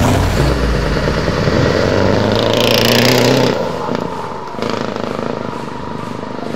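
Diesel engine of a truck tractor unit pulling away under hard acceleration, the heavy throttle shown by thick black exhaust smoke. There is a brief high hiss about three seconds in, and then the engine fades as the truck moves off.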